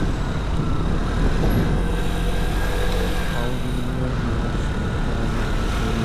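Vespa Primavera 125 scooter's single-cylinder four-stroke engine running while riding, over steady road and traffic noise, its pitch shifting a little partway through.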